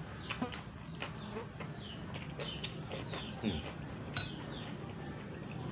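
Sharp clinks of a spoon against a plate during eating, the loudest about three and a half and four seconds in. Birds chirp repeatedly in the background, short falling calls.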